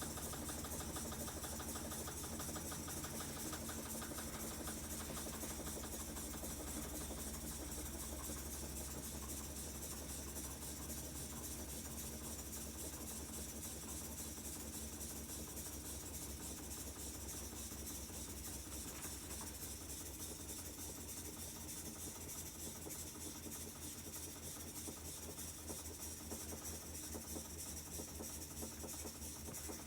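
Whirlpool top-loading washing machine running its spin cycle: a steady motor hum and whir with a fast even pulse, getting slowly a little quieter.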